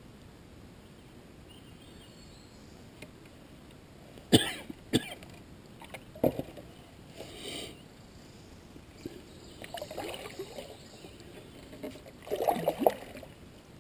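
Paddling a skin-on-frame canoe on still water: quiet paddle strokes with soft splashes and drips, and a few sharp knocks, the loudest about four and five seconds in and another a little after six seconds.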